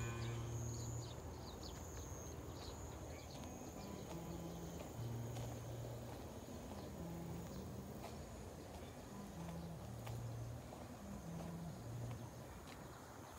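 Steady high insect trill, with short low animal calls repeating every second or so and a few faint bird chirps near the start.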